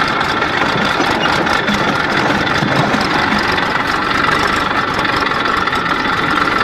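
Diesel tractor engine running steadily, heard up close from a camera mounted on the tractor's bonnet beside the exhaust stack as it drives across a field.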